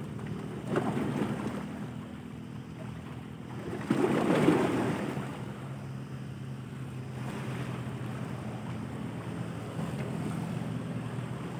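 Small waves washing against shoreline rocks, with wind on the microphone. A bigger wash of water comes about four seconds in. A steady low hum runs underneath.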